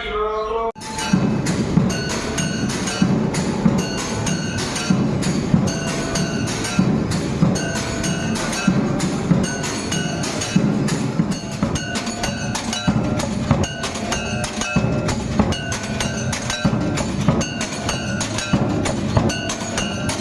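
Electric temple aarti machine with motor-driven beaters striking a drum and metal bells, starting about a second in and running as a fast, steady rhythm of dull drum beats under clanging bell strikes.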